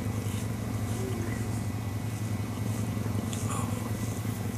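Young cheetah purring steadily while it grooms a person: a low, even, continuous rumble, with a few faint scratchy sounds around three seconds in.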